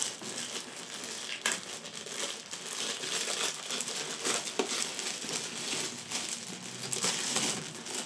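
Clear plastic packaging bag crinkling and crackling as hands pull it open and slide a boxed camera out of it. The crackling goes on unevenly, with a sharper crackle about a second and a half in.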